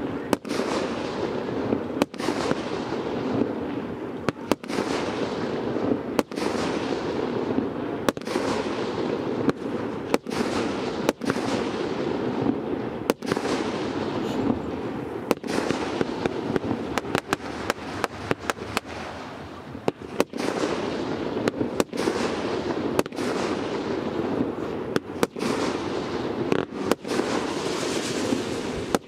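Multi-shot consumer firework cake firing: a long run of sharp shots and bursts, about one a second, coming in quicker clusters later on, with a continuous hiss between them.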